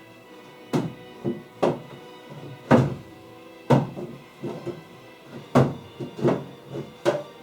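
Background music with sustained notes, over which come about ten sharp thunks at uneven intervals, like wooden cabinet doors being shut.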